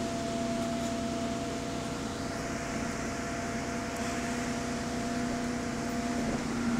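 Double-decker bus under way, heard inside the passenger saloon: steady engine and road noise with a couple of steady whining tones from the drivetrain.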